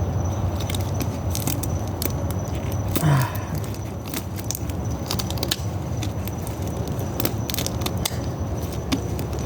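Rubber bands being stretched and snapped onto a watermelon: an irregular run of sharp snaps and clicks, with a short falling grunt about three seconds in.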